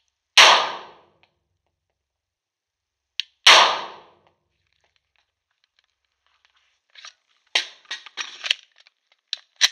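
Two shots from a Glock 21 .45 ACP pistol about three seconds apart, each with a short echoing tail in the range. Near the end, a series of metallic clicks and clatter as the pistol is handled.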